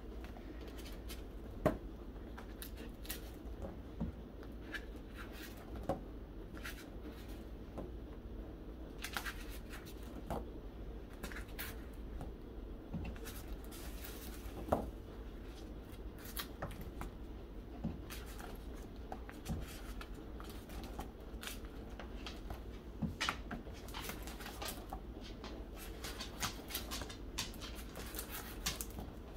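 Pages of a Blick presentation book with plastic sleeves being turned one after another: scattered soft rustles and clicks of the sleeves, over a low steady hum.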